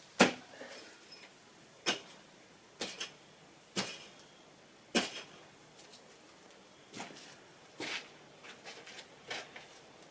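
Sharp knocks at an uneven pace, roughly one a second, as a tool cuts into a thick red cedar root.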